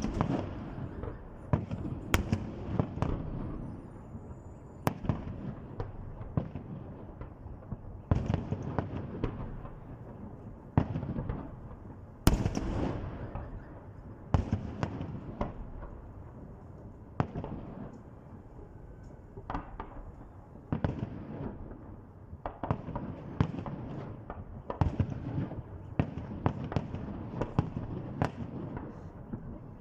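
Fireworks display: a long run of sharp bangs at irregular spacing, some heavier shells followed by rolling echoes.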